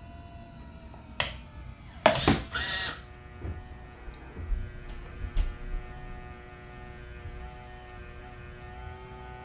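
Servos of a self-loading Nerf turret cycling through its slow dart-loading sequence: a click about a second in, then two short loud whirs about two seconds in, followed by a few lighter mechanical clicks. A faint steady hum of several tones runs under the later part.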